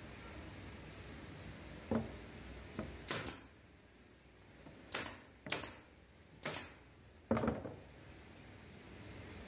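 Cabinet drawers on metal ball-bearing slides being worked, then a pneumatic nail gun firing inside a drawer. It is a string of sharp clacks, each trailing a short burst of hissing air, about five in four seconds, after two light knocks.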